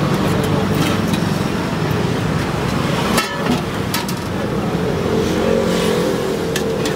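Motor vehicle engine running close by, a steady low hum, with a brief sharp clatter about three seconds in.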